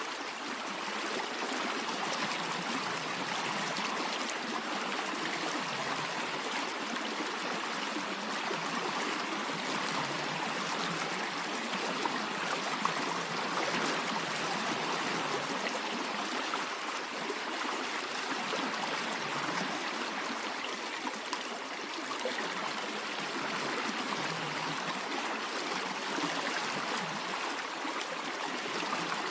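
Steady rushing and trickling of a flowing stream, even and unbroken.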